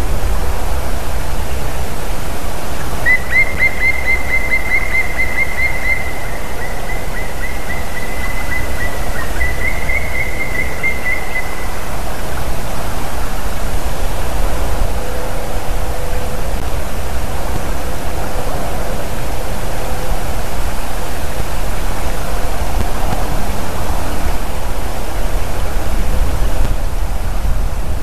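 Steady rushing hiss with a low rumble, wind on the nest-camera microphone. About three seconds in, a bird calls a rapid run of high notes lasting several seconds, with a second shorter run just after.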